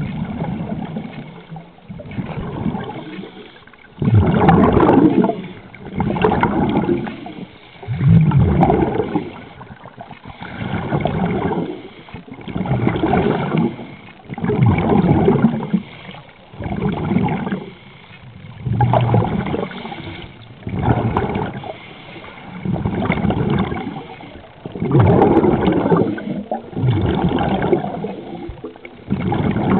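Scuba regulator breathing underwater: surges of bubbling exhaust about every two seconds, the steady rhythm of a diver's breaths.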